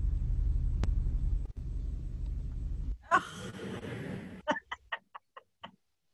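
Steady low hum with a single click, then an abrupt switch about three seconds in to a brief burst of noise followed by about six quick, short sharp sounds that die away.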